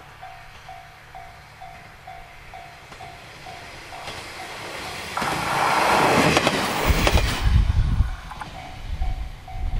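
A single-car diesel railcar approaches and passes close by, its engine and wheels building to a loud pass with clacks over the rail joints and a heavy low rumble about halfway through. A level-crossing bell rings about three times a second before the train arrives and is heard again as it moves away.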